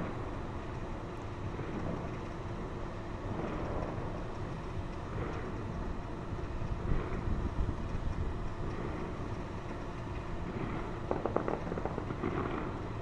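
Distant fireworks crackling faintly over a steady low rumble, with a flurry of crackles near the end.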